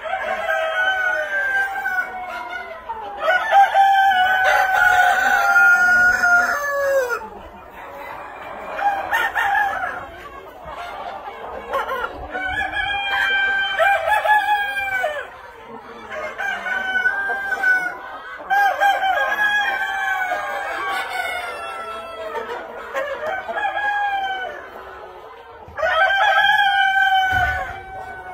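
A pen full of Buff Cochin chickens: roosters crowing again and again, the long calls often overlapping one another, over the clucking of the flock.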